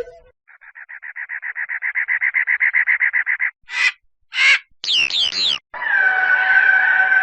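Short animal sound effects played one after another: about three seconds of a fast rattling call at roughly ten pulses a second, two short harsh calls, and three quick falling chirps. A steady held tone starts about six seconds in.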